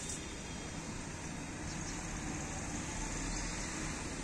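Steady background hum and hiss with no distinct events.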